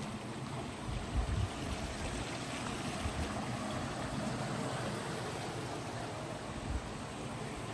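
A steady rush of water, with a few low bumps of wind on the microphone about a second in and again near the end.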